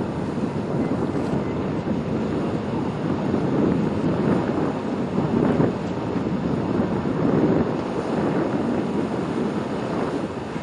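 Wind buffeting the microphone: an uneven, gusting low rush that swells and eases over several seconds.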